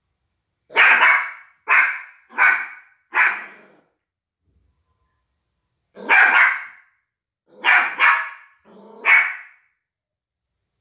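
Yorkshire terrier barking: four barks in quick succession, a pause of about two seconds, then three more.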